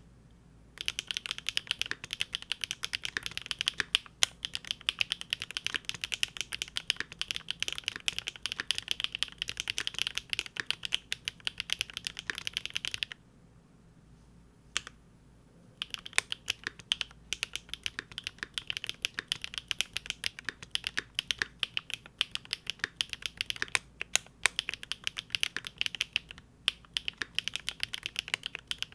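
Linworks Big Whale custom mechanical keyboard with GEON Raw Zero switches on a polycarbonate plate, typed on in a fast, steady stream of keystrokes. The typing stops for about three seconds midway, broken by a single keystroke, then resumes.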